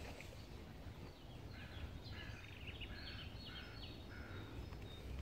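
Small songbird singing a run of quick, short, high chirps from about a second and a half in until near the end, over a faint steady low outdoor rumble.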